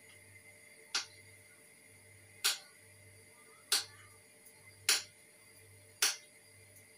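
A kitchen knife slicing chicken sausage on a cutting board: five sharp knocks of the blade on the board, one stroke about every second and a quarter.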